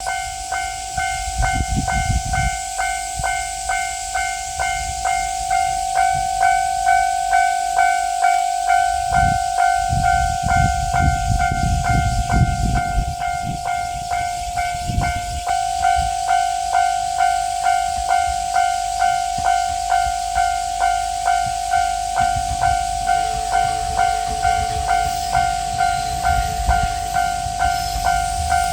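Japanese level-crossing electronic warning bell ringing steadily, its clanging tone repeating about one and a half times a second. Low rumbles come and go underneath.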